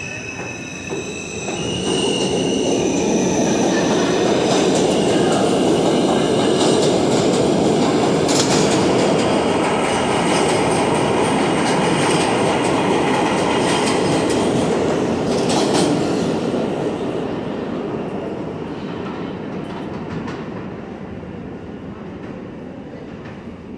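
New York City subway train pulling out of a station. The rumble of its wheels on the rails, with clicking clatter, builds over the first two seconds and stays loud while the cars pass. From about 16 seconds it fades steadily as the train leaves.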